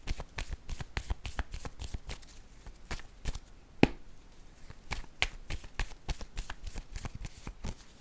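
A deck of tarot cards being shuffled by hand: a quick, irregular run of soft card clicks and slaps, with one sharper click a little before halfway.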